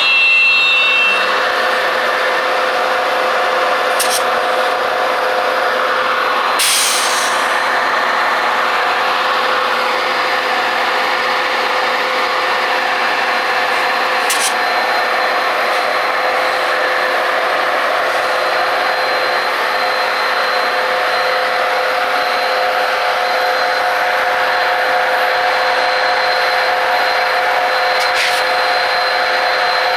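Two Metra EMD F40PH diesel locomotives running, a loud steady engine sound with a constant hum and whine. A short hiss of released air comes about seven seconds in.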